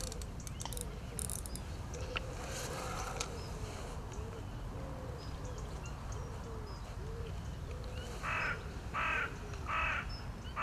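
A crow cawing four times in quick succession near the end. Before that, a fainter low call repeats softly every half second or so.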